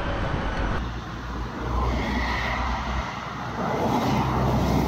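Road traffic noise: cars and trucks running past on a busy road, as a steady rumble that shifts about three seconds in.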